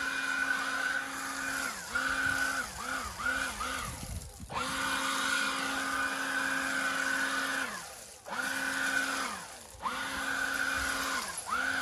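Ingco cordless leaf blower running, its electric motor giving a steady whine over the rush of air as it blows leaves. The trigger is let off and squeezed again several times: quick dips in pitch a couple of seconds in, then the motor winds down and spins back up about three times.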